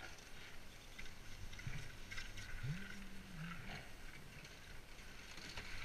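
Chairlift ride: steady wind-like rushing with scattered light clicks and rattles from the chair, and a short low drawn-out tone about three seconds in.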